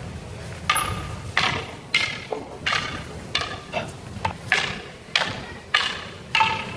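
Escrima sticks clacking together in a partner drill: a steady run of about ten sharp strikes, close to two a second, each with a brief ring, starting about a second in.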